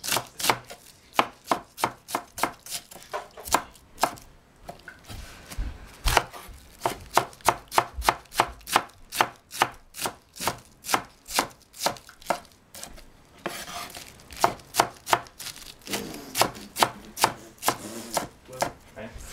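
Chef's knife slicing cabbage on a wooden cutting board: a steady run of sharp knocks, about three cuts a second, with a few short pauses.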